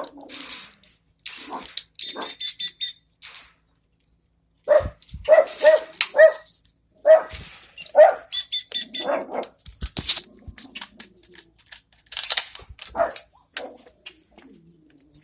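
Barking in short yaps, several in quick runs, mixed with a bird's high, rapid chirping.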